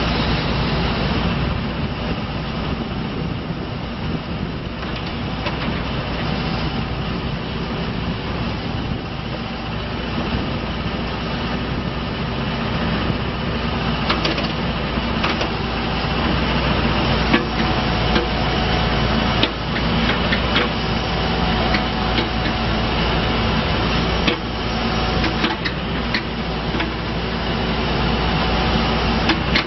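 2011 John Deere 310J backhoe loader's diesel engine running steadily, with occasional sharp knocks and clanks from about halfway through.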